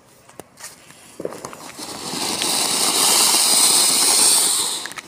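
Anar (flower-pot fountain firework) going off: a few sharp ticks as the fuse burns, then a loud rushing hiss of spraying sparks that builds over about a second and dies away near the end.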